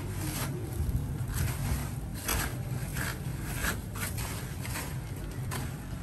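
Coarse dry crumbs rustling and scraping against a steel tray as hands toss and press a battered squid into them, in short uneven strokes about once a second over a steady low hum.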